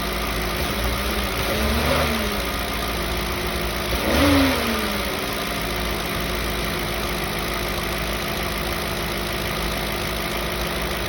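Audi S4 B6's 4.2-litre V8 idling with an intermittent rattle, blipped twice (about two and four seconds in), the second blip the louder, then settling back to a steady idle. The owner suspects the AC compressor, starter, dual-mass flywheel or timing chain as the cause of the rattle.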